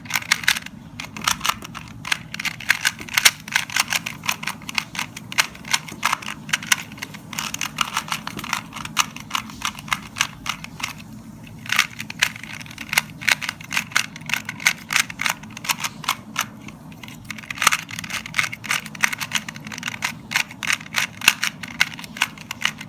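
A 2x2 Rubik's cube being solved by hand: rapid clacking of the plastic layers turning in quick runs, with brief pauses near the middle, over a steady low hum.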